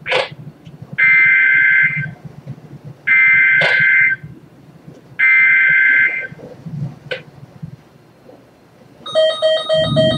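Emergency Alert System SAME header: three bursts of about a second each of the harsh two-tone digital data screech, about a second apart, carrying the coded severe thunderstorm warning. Near the end a pulsing electronic tone begins.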